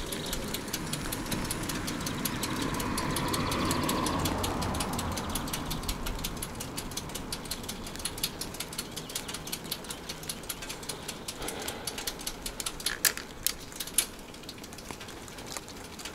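Bicycle ticking and rattling as it rides, a fast steady run of clicks. A passing vehicle swells to its loudest about four seconds in and fades away.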